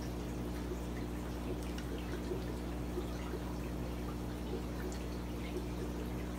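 Aquarium water bubbling and trickling from the fish room's air-driven sponge filters over a steady low hum, with a few faint small clicks.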